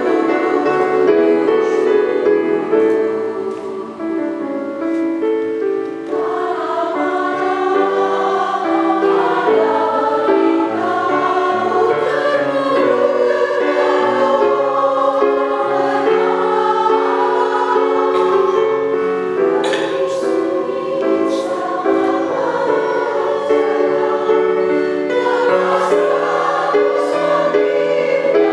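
A women's choir singing sustained chords in several parts, softening about four seconds in and then swelling fuller from about six seconds.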